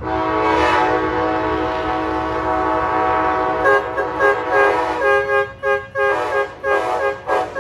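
Train horn sounding a salute: one long chord-like blast of several notes at once, held for about three and a half seconds, then broken into a quick run of short toots, about two or three a second, over the low rumble of the passing train.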